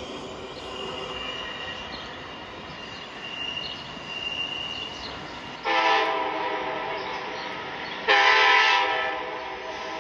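Train horn sounding twice: a long chord-like blast a little past halfway, then a shorter blast about two and a half seconds later.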